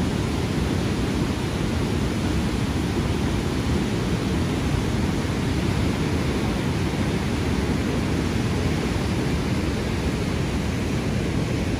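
Niagara River rapids rushing: a steady, unbroken noise of fast whitewater, heaviest in the low notes.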